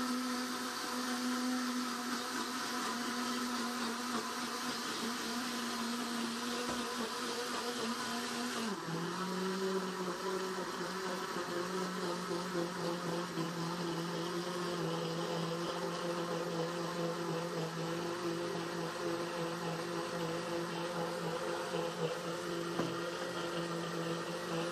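Countertop blender motor running continuously, blending hard cough sweets with vodka. Its pitch drops suddenly about nine seconds in and holds at the lower tone, the change in tone the maker points out as the mix is worked.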